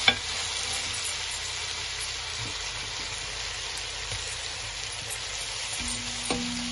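Ginger and garlic sizzling in hot oil in a frying pan, a steady hiss, with one sharp tap just at the start. A steady low note comes in near the end.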